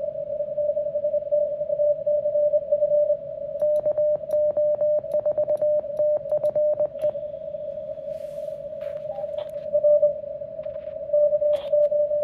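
Morse code (CW) from the QRP Labs QMX+ transceiver: a single tone of about 600 Hz keyed on and off in dots and dashes, sent on an iambic paddle key. A run of sharp clicks comes about four to seven seconds in.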